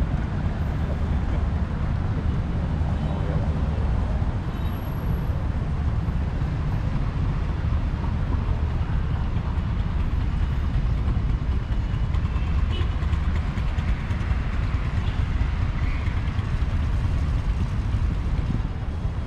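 Steady city road traffic: cars running along a multi-lane avenue, heard as a constant low rumble with no single vehicle standing out.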